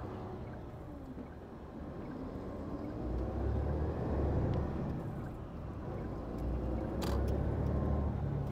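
A Hino Profia heavy truck's diesel engine and road rumble heard from inside the cab while driving, the low rumble swelling twice. A single sharp click sounds about seven seconds in.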